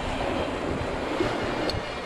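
Wind and sea noise on a sailboat under way: water rushing and slapping past the bow, with wind rumbling on the microphone.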